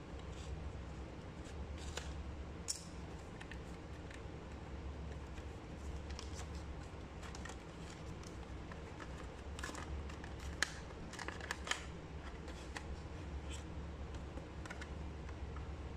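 Cardboard and paper packaging of an earbuds box being handled: seal tape peeled off, the box slid open and the inner tray pulled out, with scattered short rustles, scrapes and sharp clicks, busiest about ten to twelve seconds in. A steady low hum runs underneath.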